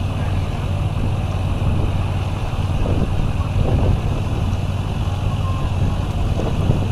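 Steady low rumble of wind in a fire whirl spinning over burning grass, with a fainter hiss above it.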